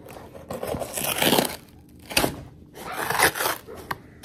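Cardboard shipping box being torn open by hand, its flap ripped away in a few separate ripping pulls.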